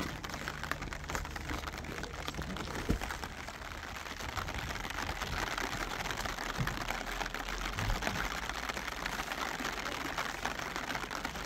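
Rain pattering steadily on a surface: a dense, even spread of fine drops throughout.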